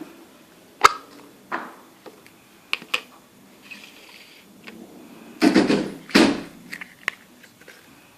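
Slime being played with by hand: scattered sharp clicks and pops, then two longer, louder squishing sounds about five and a half and six seconds in.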